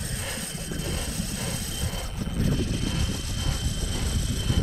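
Wind rumbling and buffeting on the microphone, a steady low fluttering noise, with a faint steady high-pitched tone underneath.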